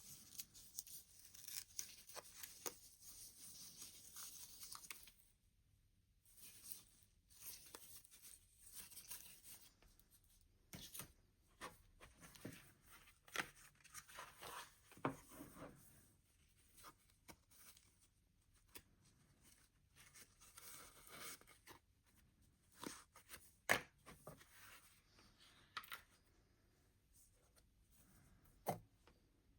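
Quiet packaging being opened: about five seconds of rustling and tearing, then scattered light clicks, taps and short rustles as the box and its contents are handled.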